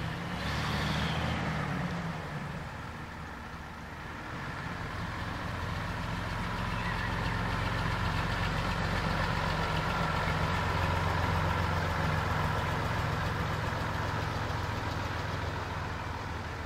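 A bus engine running steadily. It grows louder over several seconds to a peak about two-thirds of the way through, then eases off.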